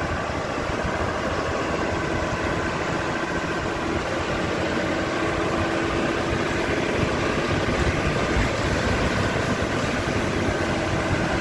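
Work truck driving along a road, towing a heavy trailer of oak logs: a steady mix of engine and road noise with no breaks.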